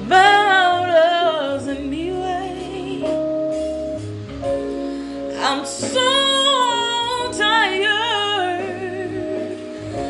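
A woman singing, her pitch wavering in runs near the start and again about halfway through, over an instrumental backing track of held chords and a bass line.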